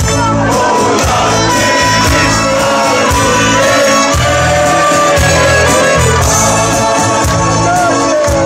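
Loud amplified live band music with a singer, over a steady, pulsing bass beat.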